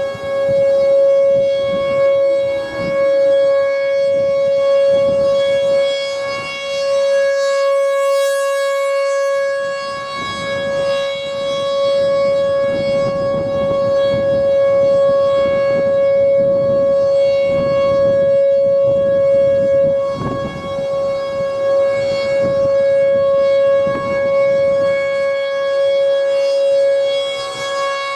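T-128 outdoor warning siren sounding a steady tone at a constant pitch during its routine test, its loudness swelling and dipping slightly.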